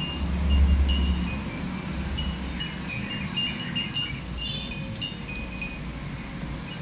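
Light chimes ringing on and off, short clear high tones recurring every second or so, with a low rumble in the first second and a half.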